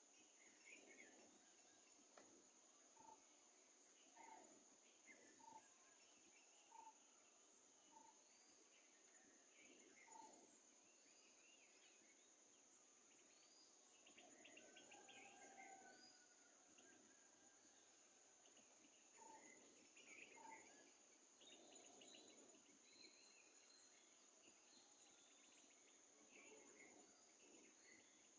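Faint forest ambience: insects trilling steadily at a high pitch, with scattered bird calls and chirps, including a run of short repeated notes through the first ten seconds.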